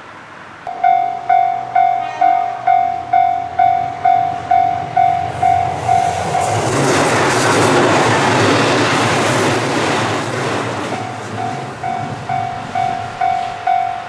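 Japanese railway level-crossing alarm dinging steadily, about two strikes a second. For a few seconds in the middle it is drowned out by the rush of a diesel railcar passing close by, then it comes through again.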